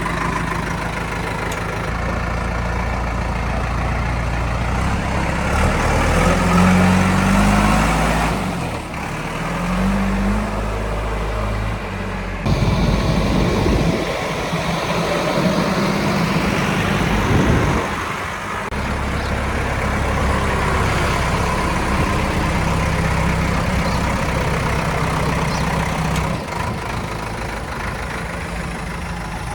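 Heavy diesel engine running, its revs rising and falling several times, with abrupt changes in the sound about twelve seconds in and again about eighteen seconds in.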